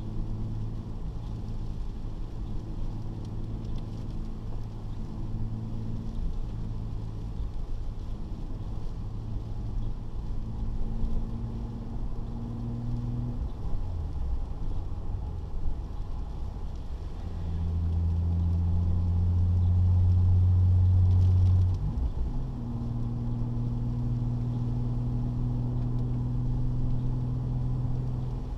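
Nissan 300ZX's V6 engine heard from inside the cabin while driving, humming steadily. About halfway through it dips during a gear change. It then pulls louder at a lower pitch for a few seconds. After another shift it settles back to a steady cruise.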